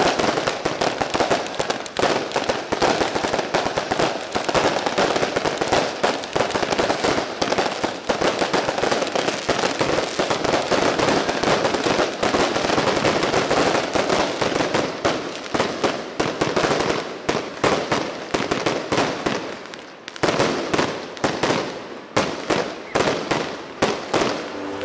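Aerial fireworks going off in a dense, continuous barrage of rapid bangs and crackles. About twenty seconds in it eases briefly, then comes back as a string of more separate bangs.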